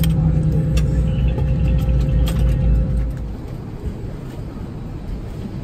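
Airbus A320 cabin noise during taxi: a steady low engine hum with a few light clicks. About three seconds in it drops to quieter cabin background noise.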